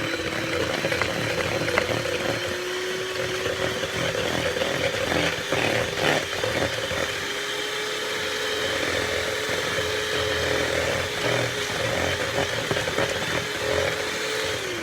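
Electric hand mixer running steadily as it beats butter, sugar and eggs into cake batter, a motor whine that creeps slightly up in pitch. The beaters knock against the bowl a few times around the middle, and the motor winds down at the end.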